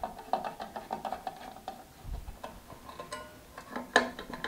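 Screwdriver undoing the screws of a Wickes bench grinder's wheel-guard cover: a run of small metallic clicks and ticks, then a sharper metal clank with a short ring about four seconds in.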